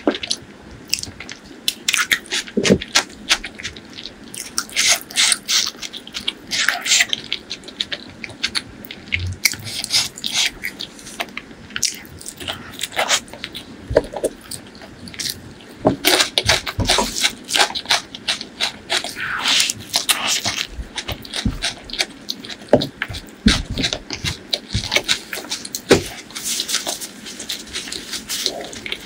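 Close-miked mouth eating a hand-fed mouthful of chicken liver and gizzard curry with rice. It is a stream of irregular wet chewing clicks and lip smacks that comes in clusters, with a few soft low thumps.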